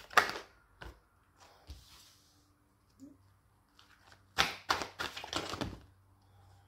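A tarot deck being shuffled by hand, the cards flapping and clicking against each other in short bursts: one sharp burst right at the start, a few faint ones, then a quick run of them from about four and a half to six seconds.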